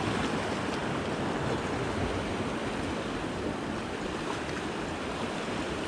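Sea surf washing against shoreline rocks, a steady rushing of waves.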